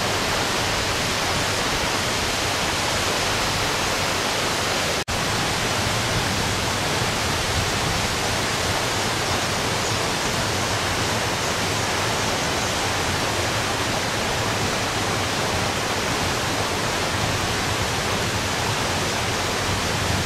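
Steady rush of a tall waterfall, about 50 metres high, falling water making an even, unbroken noise. It cuts out for an instant about five seconds in.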